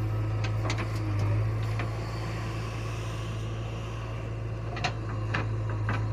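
JCB 3DX backhoe loader's diesel engine running with a steady deep drone while it works the backhoe bucket. A few short sharp knocks and clicks come through, most of them in the second half.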